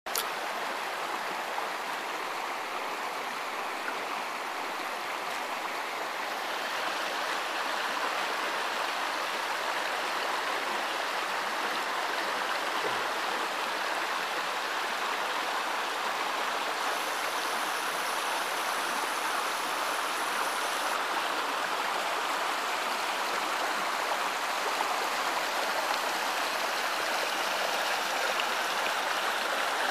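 Partly frozen mountain brook running steadily, water rushing and splashing between shelves of ice; the rush grows slightly louder after several seconds.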